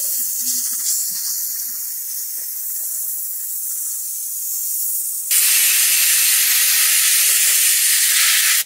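Compressed-air spray gun hissing steadily as it sprays contact adhesive onto a door panel. About five seconds in the hiss turns louder and fuller, then cuts off suddenly at the end.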